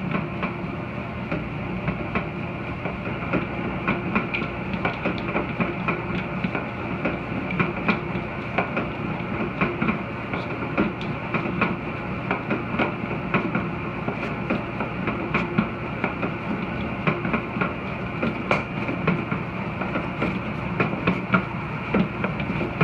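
Large commercial stand mixer running, its flat beater working a heavy batch of dough in a steel bowl: a steady motor and gear hum with frequent irregular sharp clicks and knocks.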